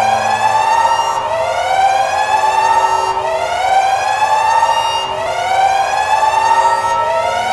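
Alarm siren whooping: a rising wail that climbs and levels off, repeating about every two seconds.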